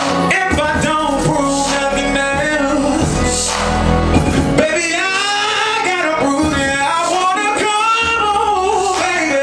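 A man singing live into a microphone over amplified music. The low accompaniment drops out about halfway, leaving his voice holding long, wavering notes.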